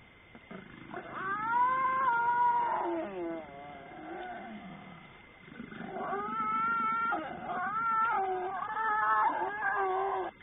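Animal calls in two long bouts, the first starting about a second in and the second about five and a half seconds in, each a pitched, wavering cry that bends up and down.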